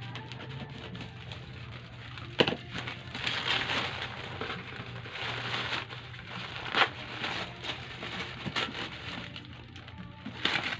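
Brown paper parcel wrapping being torn open and crumpled by hand, rustling in irregular bursts. A sharp snap of paper comes about two and a half seconds in and another at about seven seconds, the loudest sounds. A low steady hum runs underneath.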